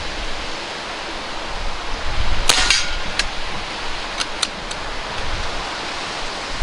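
A single shot from a custom Kral Puncher NP-02 .177 pre-charged pneumatic air rifle about two and a half seconds in: a sharp crack with a brief rattle. A few light clicks follow, all over a steady hiss of strong wind on the microphone.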